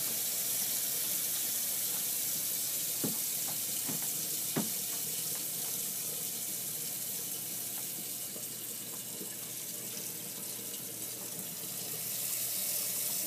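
Water running steadily from a tap into a stainless steel sink basin while hands are washed, with a few faint knocks about three to five seconds in.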